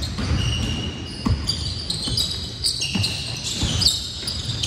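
Basketball game on an indoor court: a ball bouncing with a few dull thuds, and many short high squeaks typical of sneakers on a hardwood floor.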